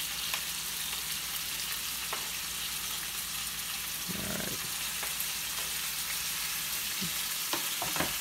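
Raw chicken and steak pieces sizzling steadily in a hot frying pan, with a brief louder rush about four seconds in as more meat is scraped off a cutting board into the pan.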